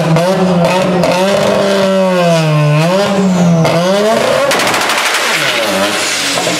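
Mazda RX-7 FC drag car launching from the start line and accelerating hard down the strip. Its engine pitch rises, dips and climbs again over the first few seconds, then breaks into a harsh rapid crackle about four and a half seconds in.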